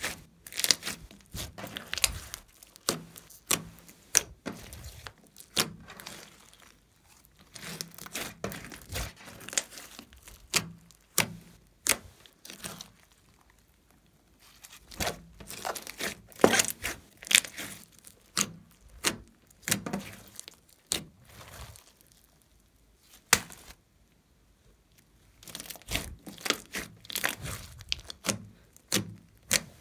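Glossy slime mixed with small beads being stretched, folded and pressed by hand: sticky crackling and popping in bursts, with short quiet gaps between handlings.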